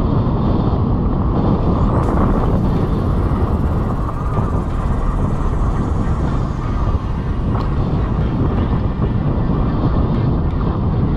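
Steady rushing of wind over a rider-mounted camera's microphone, mixed with mountain bike tyres rumbling over a dry dirt trail at speed.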